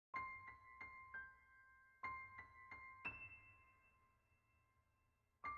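Quiet solo piano music: a short figure of four struck notes, played twice, the last note of the second figure ringing on, then a single further note near the end.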